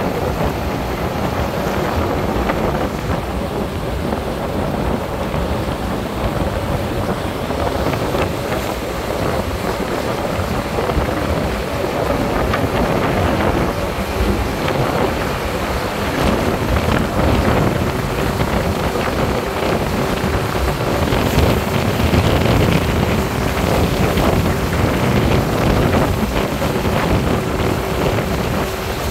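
Tugboat under way: the wake churning and rushing along the hull, with the boat's engine running steadily underneath and wind buffeting the microphone. The noise grows a little louder in the second half.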